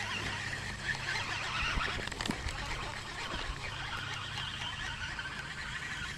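Baitcasting reel being cranked to wind in line with a small fish on, a steady gear whir that rises in pitch about halfway through and stops near the end.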